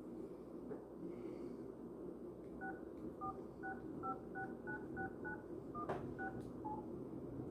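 Touch-tone keypad beeps of a mobile phone as a number is dialed: about eleven short two-tone beeps, two or three a second, starting between two and three seconds in, with a single click among them near the end.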